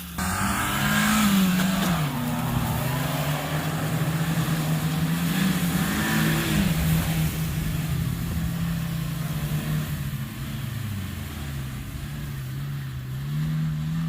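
Engine of a small off-road 4x4 driving and revving, its pitch rising and falling several times as the throttle is worked, with an abrupt start.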